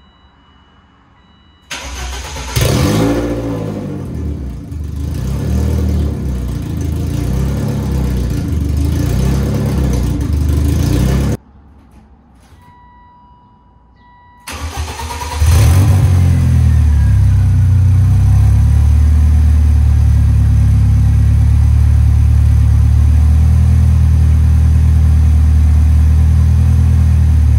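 Car engine starting and running through an open exhaust with no muffler, just headers cut off about two feet past the manifold: it catches about two seconds in, revs briefly and runs unevenly before cutting off. After a short pause the same engine starts again halfway through with a Cherry Bomb performance muffler clamped onto the downpipe, and settles into a steady idle.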